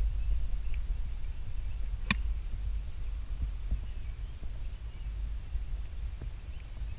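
A golf club striking the ball once on a full shot from the fairway: a single sharp, crisp click about two seconds in, over a steady low background rumble.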